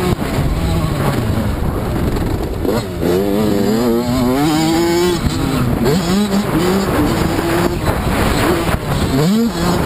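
Dirt bike engine revving hard under the rider, its pitch climbing and dropping again and again as the throttle opens and the gears change, with wind noise on the microphone.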